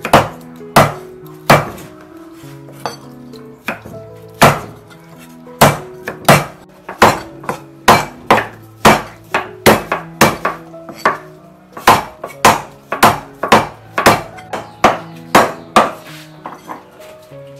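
Cleaver chopping raw chicken on a thick wooden chopping block: a long run of sharp, heavy strikes at about two a second that stops near the end. Soft background music runs underneath.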